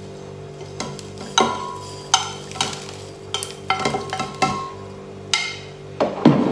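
Roasted oats tipped and scraped off a plate into an empty glass blender jug: a run of sharp taps and scrapes, some ringing briefly off the glass. There is a louder knock near the end as the plate is set down.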